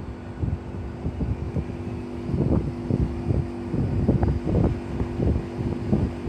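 Air conditioner outdoor unit running with a steady hum, overlaid by irregular low buffeting from wind on the microphone.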